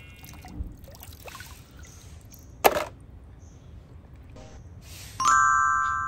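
Water trickling and splashing as mud-covered plastic toy guns are rinsed by hand in shallow water. A single sharp knock comes a little under halfway through, and a ringing chime sounds about five seconds in and fades slowly.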